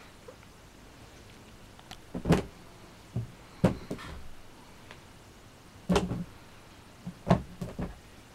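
A kitten's paws knock and thump on the lid of a clear plastic storage box as it jumps onto it and clambers about. The sharp knocks come in small clusters every second or two.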